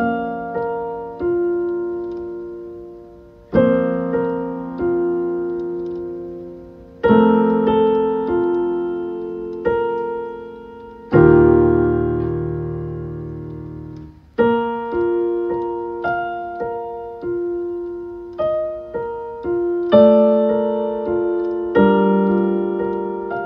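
Slow, gentle solo piano music: notes and chords struck every second or two and left to ring and fade, with a deeper bass chord about halfway through.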